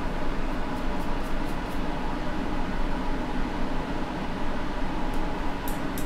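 Steady whir of bench equipment, a fan-like hiss with a low hum running throughout. Faint scratchy ticks come over it early and again near the end, as a small chip is handled and brushed with a stiff bristle brush.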